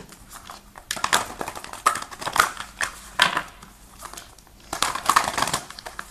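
A deck of tarot cards being shuffled by hand in four short bouts of rustling and clattering card strokes.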